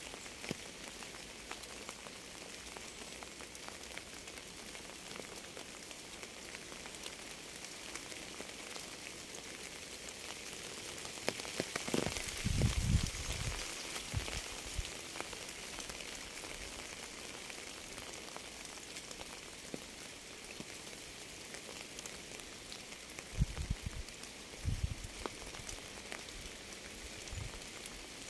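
Steady rain falling, an even hiss, with a few brief low thumps about twelve seconds in and again near the end.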